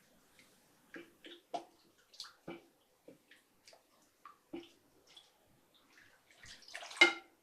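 Water dripping and splashing as fabric is wetted and pressed into a container of water and madder dye: scattered small drips and taps, then a louder splash about seven seconds in.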